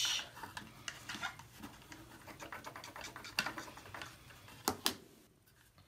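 A bone folder rubbing and scraping against 110-pound cardstock inside a small box, pressing down a freshly glued seam, with a few light clicks of the tool against the card near the end.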